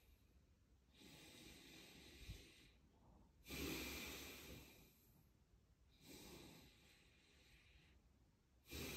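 A man's slow, deep chi gung breathing. Softer breaths alternate with stronger ones that start suddenly and fade, about five seconds apart, with the last strong breath starting near the end.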